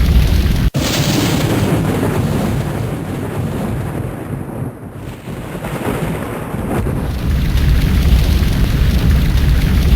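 Loud, deep rumbling like thunder from a dubbed sound-effects track. It cuts out for an instant under a second in, thins in the middle, and swells back to full strength after about seven seconds.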